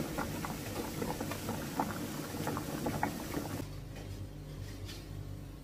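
Radish, green onion and anchovy broth at a rolling boil in a pan, a dense bubbling patter of small pops. It cuts off abruptly about three and a half seconds in, leaving a quieter room with a steady low hum and a few faint clicks.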